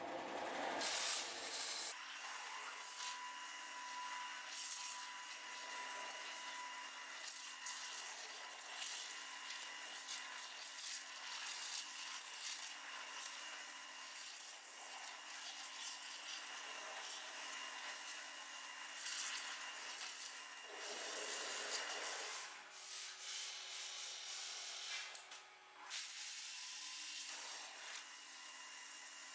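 High-pressure 5-axis CNC waterjet cutting a slab: a steady hiss of the jet through the material, with faint steady whining tones. It is louder during the first two seconds, and the sound falters and flutters for a few seconds about three-quarters of the way through.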